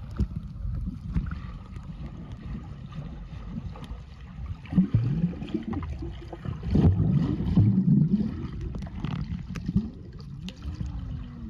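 Muffled underwater sound of a swimming pool heard through a submerged camera: low gurgling and bubbling as a child swims past, with louder churning bursts about five seconds in and again around seven to eight seconds.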